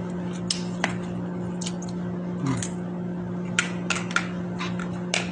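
Close-up mouth sounds of eating ripe mango slices: a scattering of sharp, wet smacks and clicks as he bites and chews, over a steady hum.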